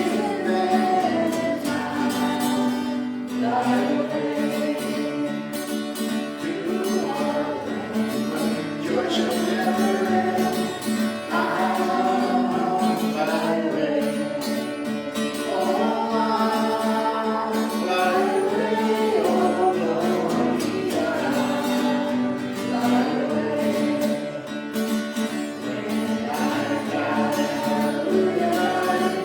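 Worship music: acoustic guitar accompanying singing voices.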